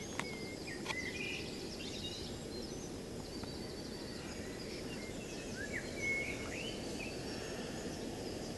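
Small birds chirping and whistling in short phrases over a steady low outdoor rumble, with two sharp clicks in the first second.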